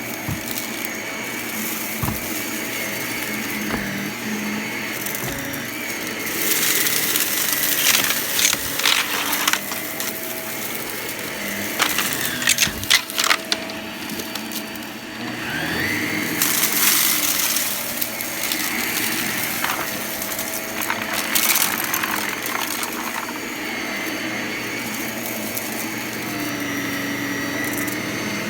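Vacuum cleaner running steadily, with clusters of sharp crackles and rattles as it sucks up crunchy debris scattered on the floor, several times through the stretch.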